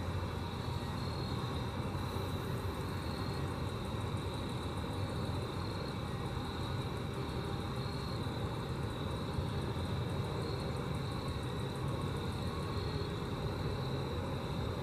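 Grasshoppers stridulating: a steady, rapid high ticking buzz over a constant low rumble.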